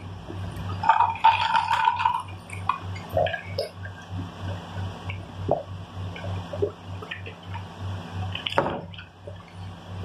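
Mouth sounds of eating and drinking: chewing and small wet clicks, then gulps from a cup, over a low hum that pulses about four times a second.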